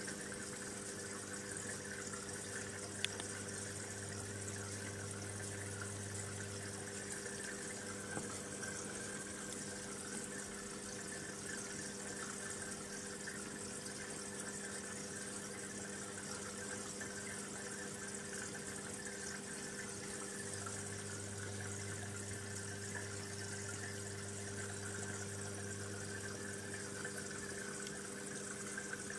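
Fish-tank pump humming steadily, with water bubbling and trickling in the tank. A deeper part of the hum drops out for a stretch in the middle and then returns.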